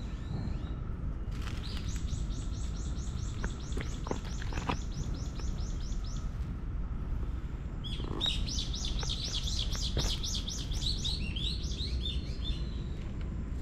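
A small songbird singing: a long run of quick, repeated high notes, about four a second, then after a short pause a second, more varied high phrase. Both sound over steady low background noise.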